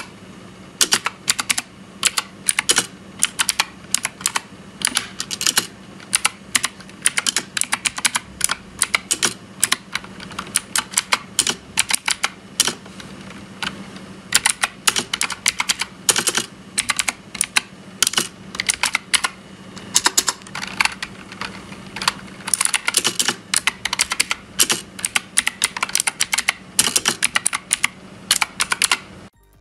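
K28 backlit mechanical gaming keyboard being typed on: rapid, irregular key clicks in bursts, stopping abruptly near the end.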